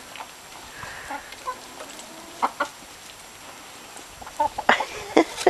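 Domestic hens clucking softly while they feed, with a quick run of short, sharp sounds about four seconds in.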